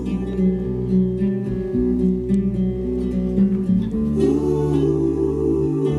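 Acoustic guitar music with a strong, steady bass, played back through a home speaker system of Bose Double Cube satellites, an Infinity BU-1 subwoofer and a Martin Logan Motion 6 centre speaker. The music moves to a new chord about four seconds in.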